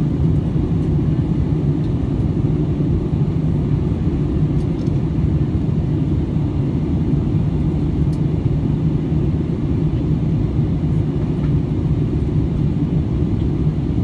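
Steady cabin noise inside a passenger plane in flight: an even, low rumble of engine and airflow with a steady hum in it, unchanging throughout.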